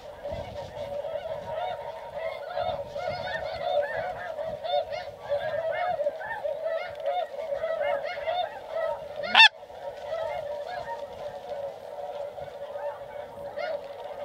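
Snow geese calling, a dense chatter of many short overlapping honks. About nine seconds in, a single short, very loud sound rises above the calling.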